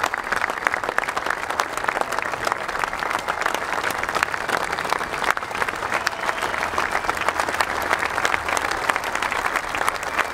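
Large stadium crowd applauding, dense and steady clapping from many hands without a break.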